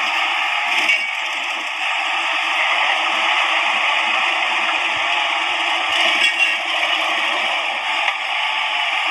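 Hydraulic excavator working as it loads logs onto a truck: a steady, noisy machine din with brief clatters about a second in and again about six seconds in.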